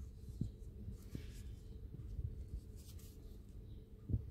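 Faint handling sounds: light rustling and a few soft clicks as hands push a straw or stick through the holes of the arm and hand pieces of a craft joint model.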